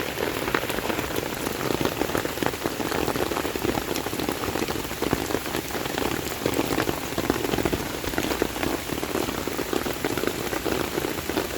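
Heavy rain falling steadily: a dense, even patter of raindrops hitting the ground and surfaces.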